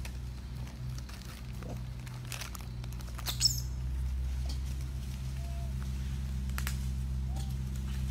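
Faint rustling and scuffing of macaques at a pile of bananas and wrapped snack packets, over a steady low hum, with one short high squeak about three and a half seconds in.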